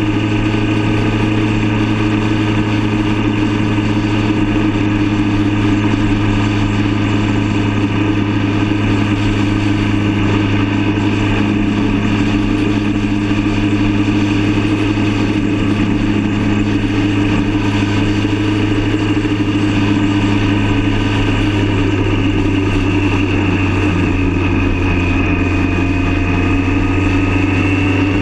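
Motorcycle engine running steadily at cruising speed. Its pitch shifts slightly near the end.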